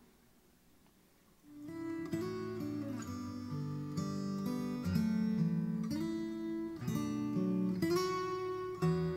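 Near silence for about a second and a half, then acoustic guitar music starts: strummed and plucked chords.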